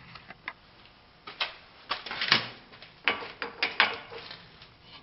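Irregular metal clicks and clanks as a drill press vise and a solid aluminum bar are handled and set in place on the drill press table, a scatter of short knocks with the loudest in the middle.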